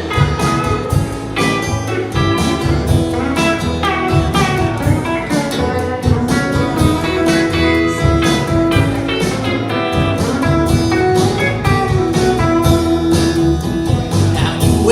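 Live country band playing an instrumental break between verses: a guitar plays a lead line of quick notes over bass and a steady drum beat.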